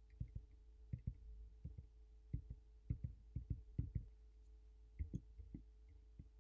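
Fingertips tapping on the glass of an iPhone SE touchscreen: a string of faint, irregular taps, about two or three a second, while the touch response of a swapped-in display is tested, the touch registering only some of the time.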